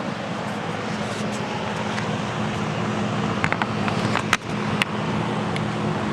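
Vintage Lakewood Country Aire 20-inch box fan with a Westinghouse motor running steadily on high speed: a constant motor hum under the rush of air from the blades. A few sharp clicks come in about three and a half to five seconds in.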